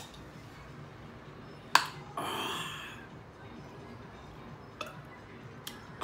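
A single sharp knock about two seconds in, then a man's breathy exhale after a drink lasting under a second, with a couple of faint ticks near the end.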